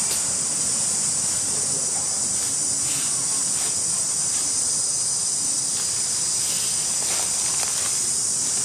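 Steady high-pitched drone of an insect chorus in the forest canopy, unbroken and even in level.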